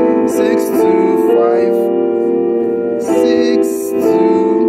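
Keyboard playing full sustained chords through a jazz-gospel 7-3-6-2-5-1 progression, with a single-note left hand. The chord changes about four times.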